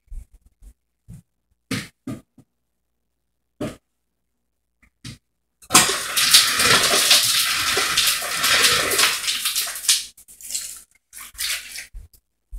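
Water running from a tap for about four seconds, starting about halfway through and stopping fairly suddenly, after a few short knocks.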